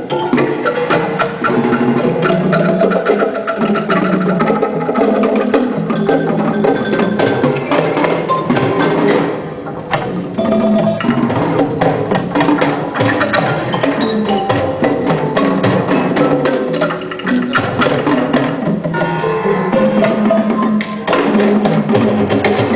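Percussion music: frequent sharp wooden clicks over many overlapping pitched, ringing notes.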